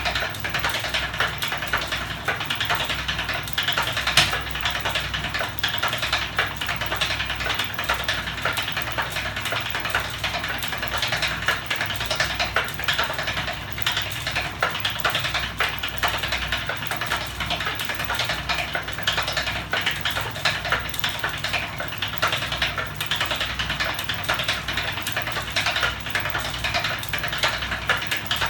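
Homemade magnet-driven flapping-wing machine with a bike ratchet in its drive, running at speed: its linkages and ratchet make a dense, steady rattle of rapid clicks over a low hum, with one louder knock about four seconds in.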